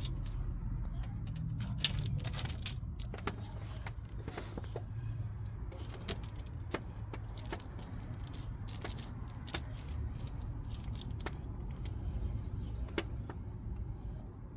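Loose metal clinks and rattles as the second timing chain and its parts are pulled off a Ford 3.0L EcoBoost V6 during teardown, with irregular sharp clicks over a steady low hum.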